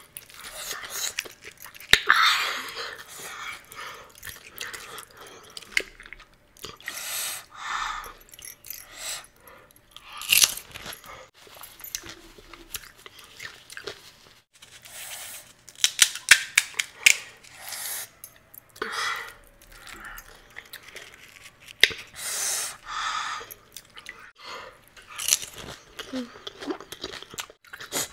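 Close-up eating of pani puri: crisp, hollow fried puri shells crunching and being chewed, in irregular bursts with short pauses between mouthfuls.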